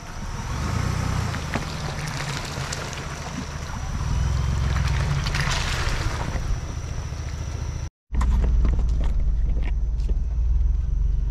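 2021 Ford Bronco rolling slowly through a muddy puddle past the camera: low engine rumble with tyres splashing and sloshing in mud and water. After a short cut about eight seconds in comes a louder, steady engine and trail rumble as heard inside the cabin.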